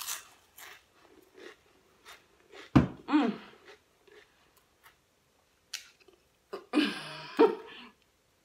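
A person chewing a mouthful of Pringles potato crisps, letting out muffled closed-mouth voice sounds through the food: a short one with a sharp start about three seconds in and a longer one near the end.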